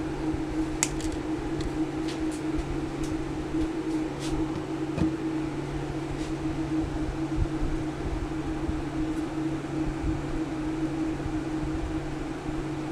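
A steady fan-like hum with a low drone, and a few faint light clicks in the first several seconds.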